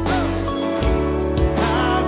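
Worship music with singing: a voice carrying a melody over sustained low chords, with a few sharp percussive hits.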